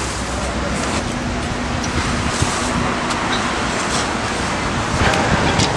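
Steady road traffic noise, with a faint engine hum through the middle.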